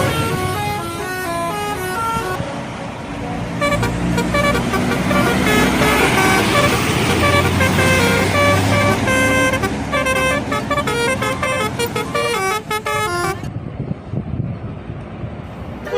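Telolet horn on an Indonesian bus playing quick runs of stepped notes, one melody after another, over the bus's engine and road noise.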